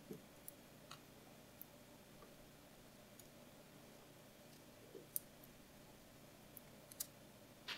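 Near-silent room tone with scattered faint clicks and taps as a small plastic action figure and its backpack strap are handled, the sharpest clicks about five and seven seconds in.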